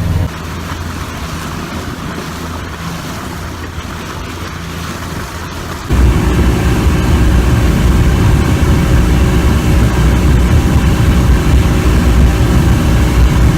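Motorboat under way: the outboard engine running steadily with rushing wind and water noise. About six seconds in it becomes suddenly much louder, with a deep steady engine drone.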